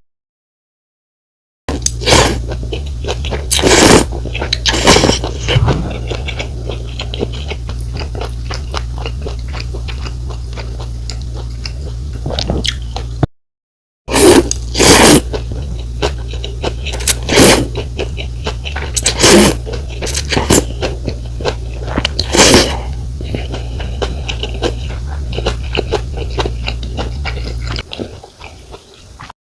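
Close-miked eating sounds of rice noodle soup: loud, short slurps of noodles between wet chewing, a dozen or so in all, over a steady low hum. The sound cuts out completely at the start and again for a moment about halfway through.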